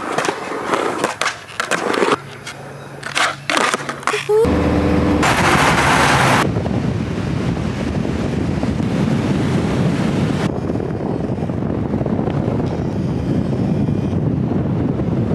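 Skateboard rolling and clattering around a concrete bowl, with sharp knocks of the wheels and board. About four seconds in it gives way to a steady rush of wind buffeting the microphone.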